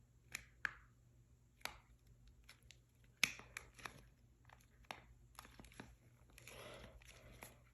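Plastic packaging being pried at and handled: faint crinkling with scattered sharp clicks and taps, the loudest click a little over three seconds in and a longer rustle near the end.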